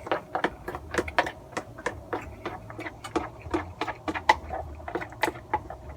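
Close-up eating noises from a man chewing cup yakisoba noodles: a quick, irregular run of small wet mouth clicks and smacks, over a faint low hum.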